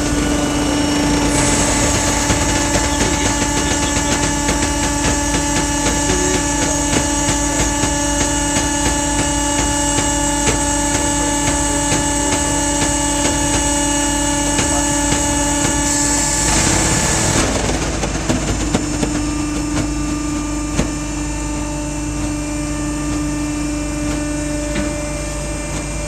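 Mill-size baler's hydraulic power unit running with a steady hum, with a brief hiss about two-thirds of the way through, after which its high hiss drops away.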